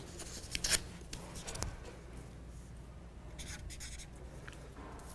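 Felt-tip marker writing on a small paper card in a few short, scratchy strokes.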